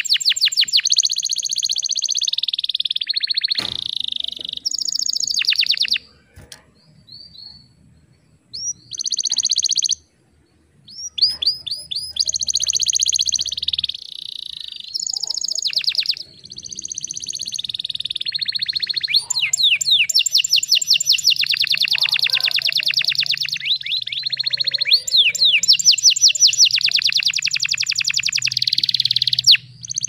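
Domestic canary singing: fast, high-pitched trills and rolling phrases, with short breaks about six and ten seconds in.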